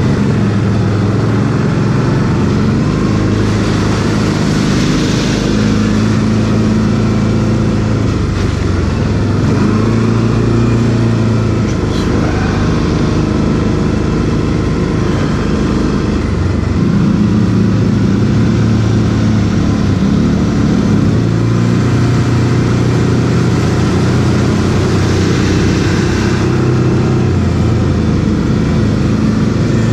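Quad bike (ATV) engine running under way, its note rising and falling every few seconds with the throttle.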